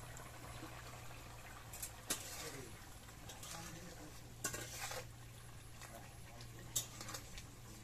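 A spoon stirring and scraping food in a metal cooking pot, with a few sharp clinks about two, four and a half and seven seconds in.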